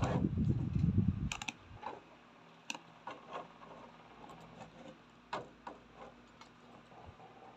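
A plastic action figure being handled: a low rumble of handling noise for about the first second, then scattered light clicks as the figure's head and jaw are moved.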